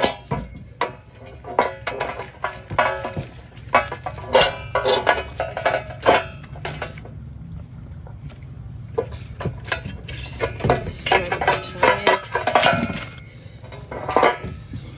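Metal clanking and clinking as a floor lamp's steel pole and round metal base are knocked about and handled: irregular knocks, some ringing briefly, with a quieter stretch midway.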